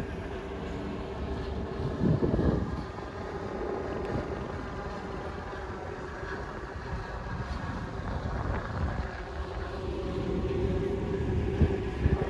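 Steady rumble of vehicle traffic, with a brief louder swell about two seconds in.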